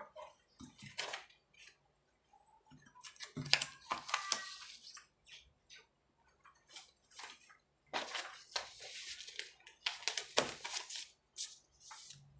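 Sheets of paper rustling in irregular bursts as the pages of a thick document are turned, lifted and squared up, with small scratches and taps between.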